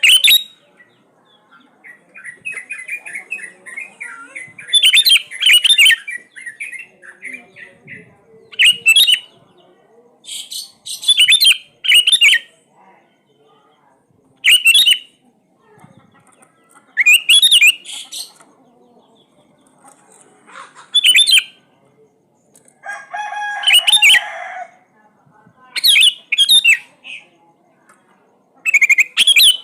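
Sooty-headed bulbul (kutilang) singing loud, short whistled phrases, about ten of them, one every two to three seconds. A spell of softer chattering comes near the start, and a buzzier call about two thirds of the way in.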